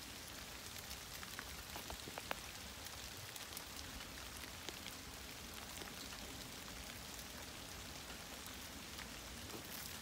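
Rain falling steadily, with a few sharper drip ticks here and there.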